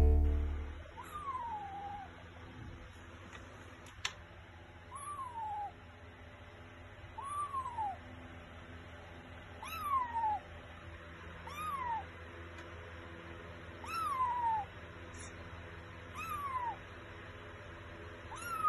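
Tabby kitten meowing over and over, about eight short high mews spaced roughly two seconds apart, each rising then falling in pitch.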